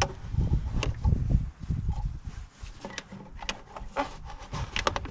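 Stock rubber-and-plastic air intake pipe being worked off the engine and lifted out by gloved hands: irregular rubbing and dull knocking, with a few sharp plastic clicks.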